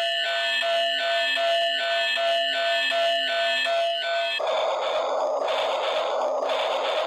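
Toy train's electronic sound effects: a pulsing beeping tone, about two and a half pulses a second, for the first four seconds or so, then switching to a hissing electronic chugging sound about twice a second.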